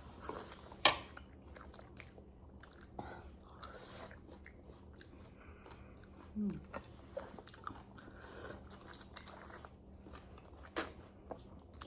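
Close-up eating sounds: chewing and crunching of food with scattered small clicks. A sharp click about a second in is the loudest.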